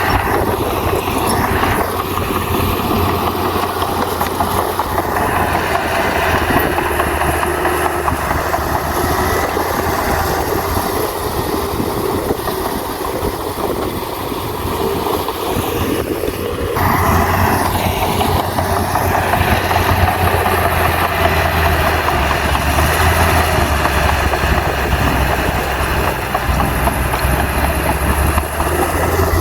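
Heavy bulldozer diesel engine running steadily under load. A little past halfway the sound changes abruptly and the deep engine note grows louder.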